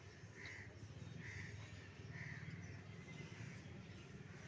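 A crow cawing faintly and repeatedly, about one short caw a second, over a low steady background rumble.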